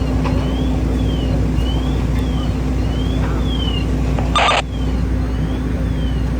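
Steady low rumble of fire apparatus engines running at the fire scene, with a faint siren wailing up and down about twice a second. A short burst of radio static cuts in about four and a half seconds in.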